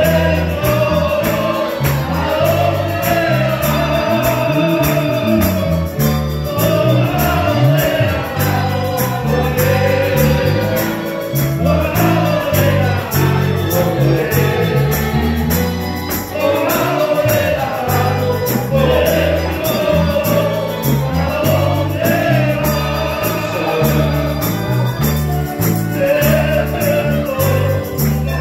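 A congregation sings a hymn together in chorus, accompanied by strummed guitars, a bass line and a steady beat.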